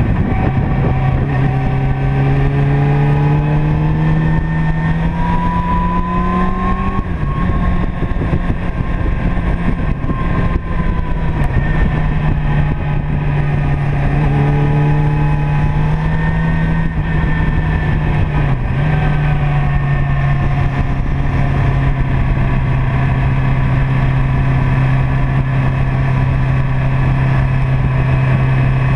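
Motorcycle engine running at road speed, rising in pitch as it accelerates over the first seven seconds and again around fifteen seconds in, otherwise holding a steady note, with wind rushing over the microphone.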